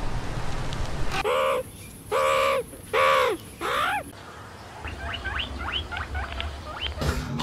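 Four loud, harsh animal calls, each rising then falling in pitch, come in quick succession about a second in. They are followed by about two seconds of quick, high, short chirps.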